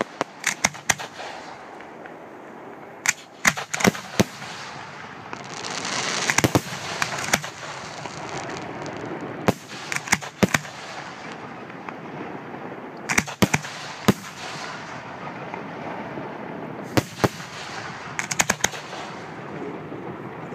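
Aerial firework shells bursting overhead: clusters of sharp bangs every few seconds, with a stretch of hissing crackle about six seconds in.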